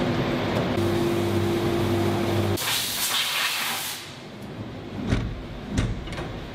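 A compressed-air blow gun hisses loudly for about a second and a half, blowing aluminium chips off an engine case inside a CNC machining centre, over a steady machine hum. Near the end, two sharp thumps come from the machine's sliding door being handled.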